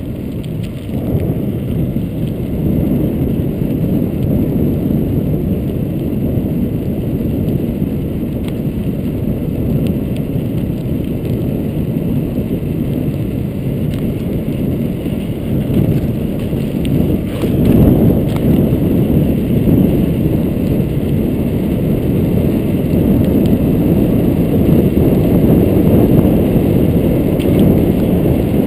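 Steady wind rumble on the camera's microphone mixed with tyre noise from a knobby-tyred mountain bike rolling over asphalt and paving stones, growing a little louder about two-thirds of the way through, where a couple of faint knocks come through.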